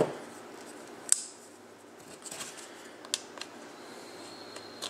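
A folding knife being handled: a few sharp, light metallic clicks and taps with some faint rustling between them.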